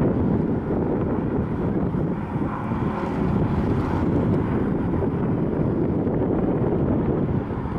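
Wind buffeting the camera's built-in microphone: a steady, rumbling noise that swells and eases a little.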